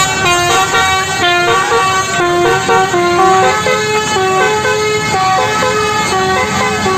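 Basuri telolet horn on a bus playing a melody: a running tune of short held notes that step up and down every quarter to half second.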